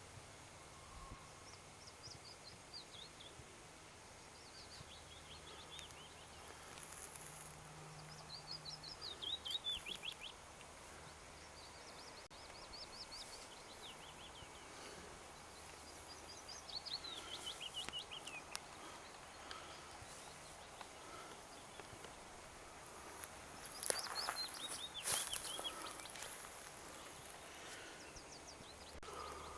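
Quiet outdoor ambience in which a songbird sings a short, falling trilled phrase four times, about every seven to eight seconds, over a steady hiss. A couple of brief rustles come near the end.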